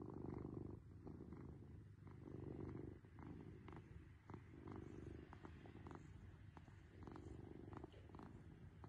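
Domestic cat purring faintly, the purr swelling and fading with each breath about every two seconds.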